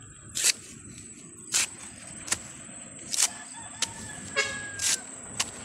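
A bolo knife chopping bamboo shoots on the ground: a series of sharp strikes, roughly one every half-second to second. A brief horn-like toot sounds about four and a half seconds in.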